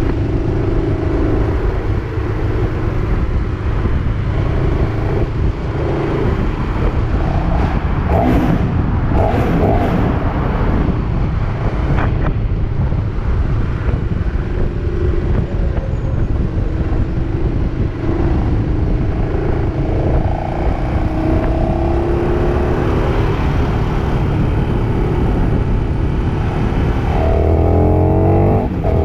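KTM 1290 Super Duke R's V-twin engine running while riding, under heavy wind noise on the microphone; near the end the revs rise quickly under acceleration.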